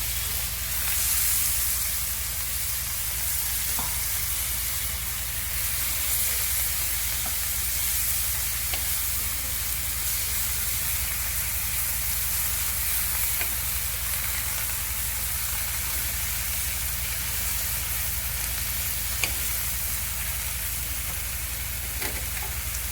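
Fresh spinach leaves sizzling in hot oil in a pan as they are stir-fried, a steady frying hiss with a few light clicks.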